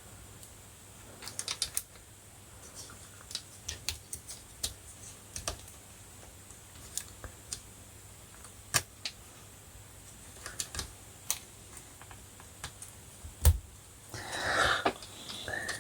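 Irregular small clicks and taps of laptop parts and cable connectors being handled and fitted, with a louder knock about thirteen seconds in and a rustling scrape near the end.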